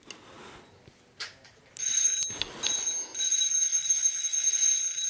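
A spinning fishing reel whirring steadily with a high ringing tone, starting about two seconds in with a brief break near three seconds. A few faint handling clicks come before it.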